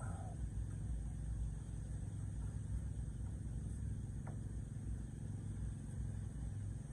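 2400 W power inverter running with its case open, giving a steady low hum.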